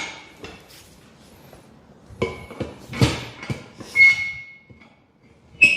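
A few sharp knocks, each with a short metallic ring. The knock about four seconds in rings on for most of a second.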